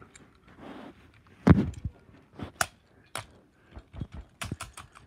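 A string of sharp, irregular clicks and knocks from handling, about a dozen over a few seconds, the loudest about a second and a half in, with a soft rustle just before.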